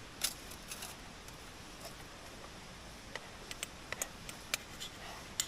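Eating utensils clicking and tapping lightly against dishware: about a dozen short, uneven clicks, the sharpest just after the start and a quick cluster about halfway through.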